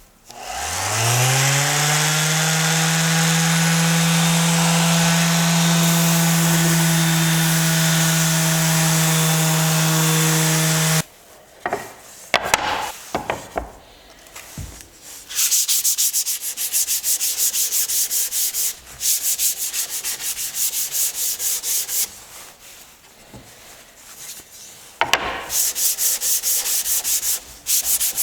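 A motor hum rises in pitch, holds steady for about ten seconds, then cuts off suddenly. After a few knocks comes wood being rubbed by hand in fast, even back-and-forth strokes, typical of sanding with sandpaper.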